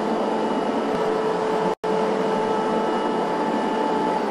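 Steady hum and whine of car assembly-line machinery, holding one pitch with a fainter higher tone above it. The sound cuts out for an instant just under two seconds in.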